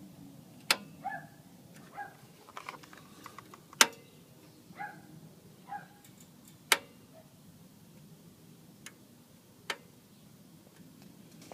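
Sharp, irregular clicks one to three seconds apart from a Ford Focus ST-2 with its engine switched off, which the owner suspects is the hot exhaust manifold ticking as it cools. A few short, fainter chirps sound between the clicks in the first half.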